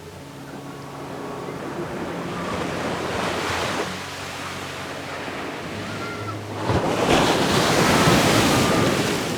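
Ocean waves breaking and rushing up a beach: one wave swells and falls away in the first half, then a louder one crashes about seven seconds in.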